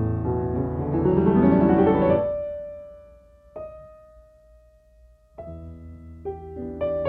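Background piano music: a rising run of notes, a single held note that fades away, then chords coming back in about five seconds in.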